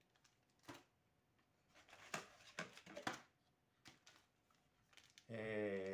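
Light rustling of small plastic accessory bags and scattered clicks of small plastic camera mounts being handled. A man's drawn-out voice starts near the end.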